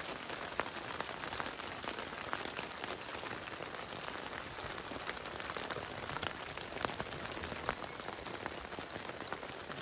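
Steady rain falling on a camping tarp overhead, with the sharp ticks of single drops striking it throughout.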